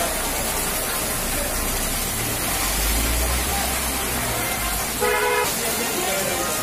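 Steady hiss of heavy rain on a waterlogged street. A motor vehicle drives past with a low engine rumble, and a vehicle horn gives one short toot about five seconds in, the loudest moment.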